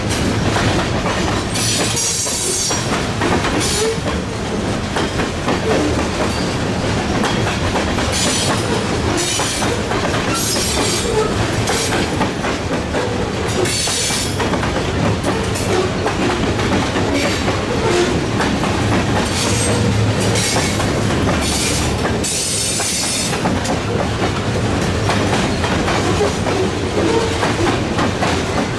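Freight train cars rolling past, a steady loud rumble of steel wheels on rail with clicking over the rail joints. Short high-pitched wheel squeals come every second or two.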